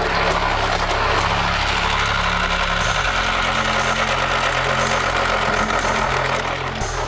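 Battery-powered orange toy blaster with spinning discs switched on, giving a steady, engine-like buzzing that stops shortly before the end.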